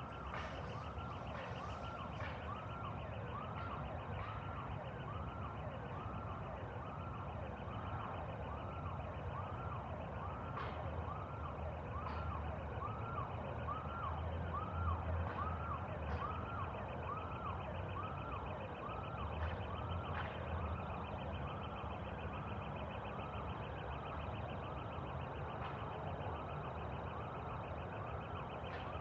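A siren-like tone sweeping up and down in pitch, about one and a half sweeps a second, repeating evenly throughout, with a fainter fast buzzing pulse above it and a few scattered clicks.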